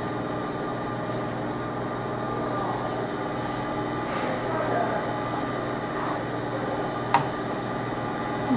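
Fiber laser marking machine running with a steady hum made of several steady tones, with one sharp click about seven seconds in.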